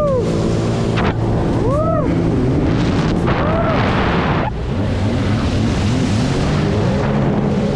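Jet ski engine running hard, with wind rushing on the microphone and water spray hissing. Every couple of seconds the pitch swells up and falls back as the craft carves through turns.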